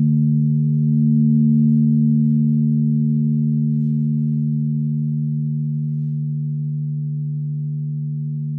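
Crystal singing bowls ringing together in several low held tones that swell slightly about a second in and then slowly fade.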